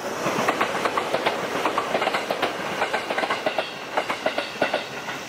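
A short electric commuter train passing close by on a conventional line, its steel wheels clattering over the rail joints in a quick, uneven run of clacks over a steady rushing rumble.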